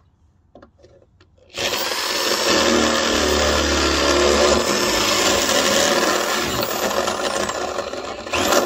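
Cordless drill running continuously for about seven seconds, starting about a second and a half in, fastening a solar panel's mounting bracket to the roof with metal screws.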